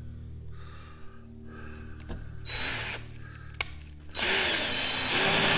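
Cordless drill-driver driving a screw into a wooden stick: a short burst of the motor about halfway in, then a longer, louder run from about four seconds in whose whine rises and then holds steady at full speed.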